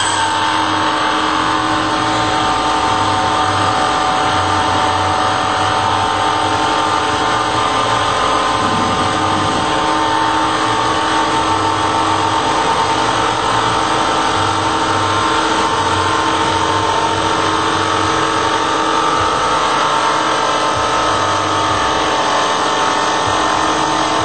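CNC router spindle with an end mill cutting a wooden workpiece turning in a small Sherline lathe: a steady, loud machine whine with several held tones over the noise of the cut and a pulsing low hum.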